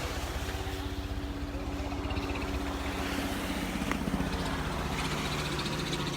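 A motor engine running steadily with a low hum, over the hiss of wind and surf.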